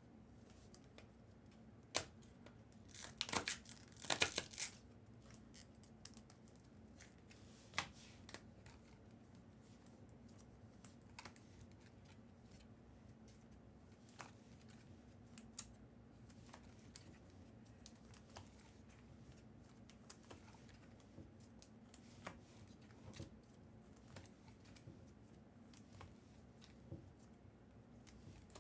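Card packaging torn open: a short crinkling rip about three to four seconds in, then faint scattered clicks and taps.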